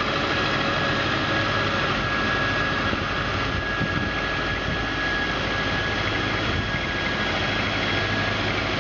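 Engine of a Soviet DU-47B road roller running steadily, with a thin steady high whine over the engine noise.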